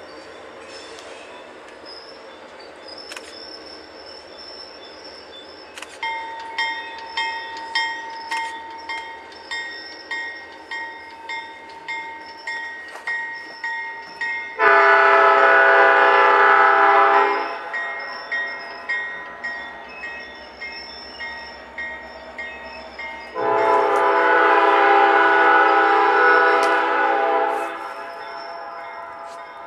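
Nathan Airchime P5 horn on an EMD GP30M diesel locomotive sounding two long blasts, the second starting about nine seconds after the first. A bell rings steadily at about one and a half strikes a second from about six seconds in and carries on between the blasts.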